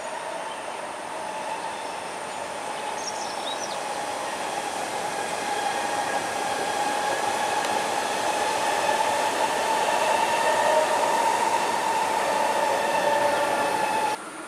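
Electric metro train running along an elevated track, growing steadily louder as it approaches and passes, with a steady whine of several tones over the running noise. The sound cuts off suddenly near the end.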